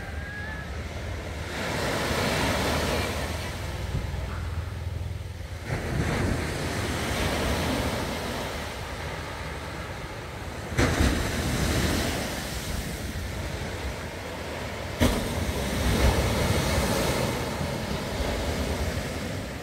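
Small sea waves breaking and washing up a sandy beach, the surf swelling every few seconds, with wind rumbling on the microphone. Two sharp clicks in the second half.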